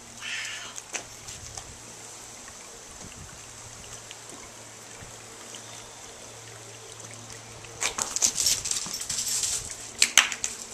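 Golden retriever playing with a ball on paving and gravel: a short high-pitched sound right at the start, then, about eight seconds in, a two-second spell of loud crunching and scrabbling as its paws run over the gravel, with a sharp click near the end.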